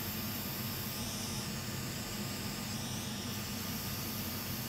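Hot air rework station blowing a steady hiss of air with a low hum underneath, as a chip is soldered onto a circuit board.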